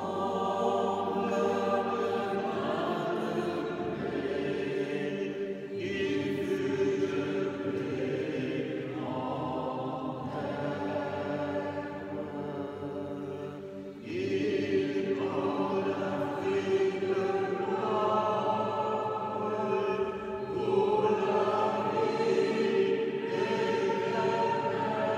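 Choir chanting a hymn in long sustained sung phrases, several voices blending, carried by the echo of a large stone church.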